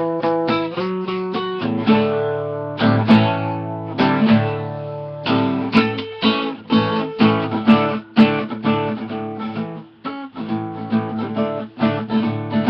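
Acoustic guitar strummed in steady rhythmic chords, an instrumental break between sung verses, with a brief pause about ten seconds in.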